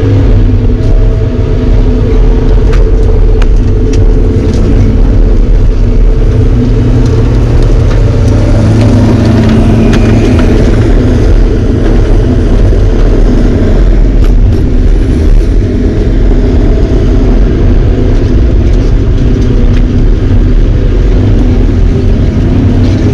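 Heavy logging-equipment diesel engine running steadily at an even speed, with occasional light clicks and rattles.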